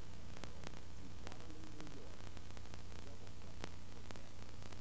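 Steady hiss and low hum with faint scattered clicks: the noise floor of a blank stretch of analog videotape.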